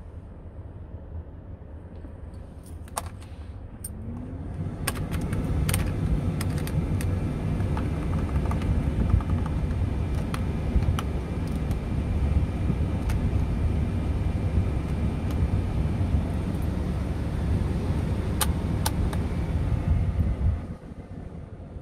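Steady low rumble inside a Scania P truck's cab. It comes up about four seconds in with a short rising whine and cuts off suddenly near the end, with a few sharp clicks of dashboard switches over it.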